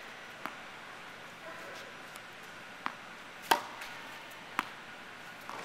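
Tennis ball struck with a racket and rebounding off a netted rebound frame: several sharp pops at uneven intervals and of varying force, the loudest about three and a half seconds in.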